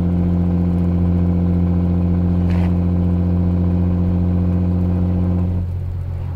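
Vehicle engine pulling hard uphill at a steady pitch, smoking from the exhaust. About five and a half seconds in it eases off and gets quieter.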